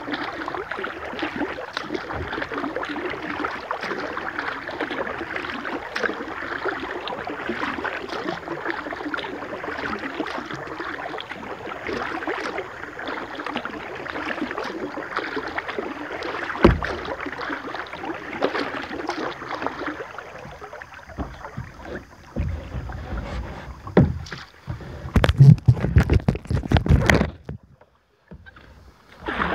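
Moving water rushing and splashing around a kayak as it is paddled, with small splashes throughout. After about twenty seconds this gives way to heavy, low thumps and rumbling, then cuts out briefly near the end.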